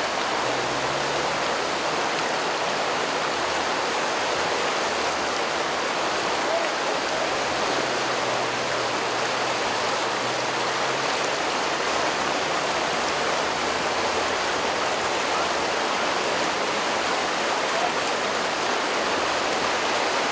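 River water rushing, a steady, even noise with no breaks.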